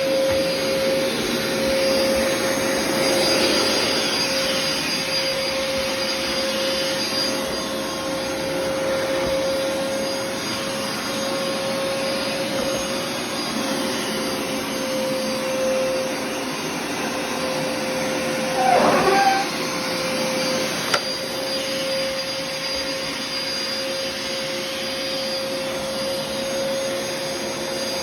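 Vacuum cleaner motor running steadily with a constant whine. About 19 s in, a brief, louder wavering squeal rises over it, and there is a single sharp click a little later.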